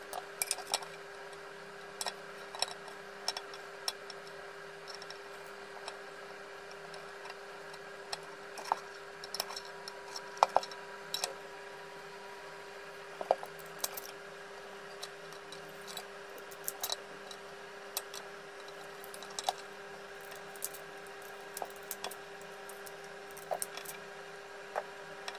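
Scattered light clicks and knocks of plastic parts being handled: a switch and its wiring fitted into the plastic handle housing of a Makita 1902 planer. A steady faint hum runs underneath.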